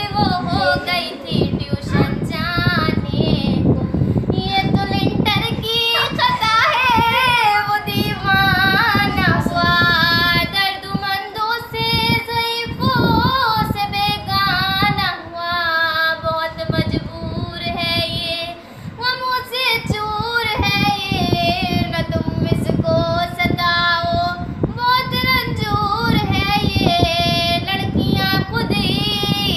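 A young woman singing a song solo without accompaniment, in phrases with long held notes that waver in pitch and short breaths between them.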